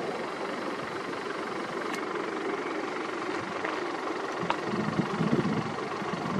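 Sikorsky S-64 Skycrane twin-turbine heavy-lift helicopter flying in, its rotor and turbine noise steady, growing louder with a stronger low rotor flutter near the end as it comes closer.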